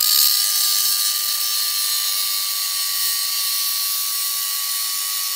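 Kobalt cordless angle grinder running at full speed, its wheel grinding into a steel combination wrench: a steady high whine that sags slightly in pitch under load, over a harsh hiss of grinding.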